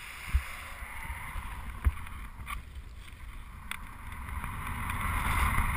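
Wind rushing over a GoPro's microphone in paraglider flight: a low rumble with two sharp knocks, about half a second and two seconds in, growing louder near the end.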